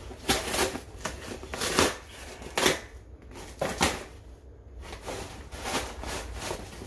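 Cardboard shipping box being torn open by hand: packing tape and cardboard ripping in a string of short, irregular tears, loudest in the first few seconds and lighter rustling after.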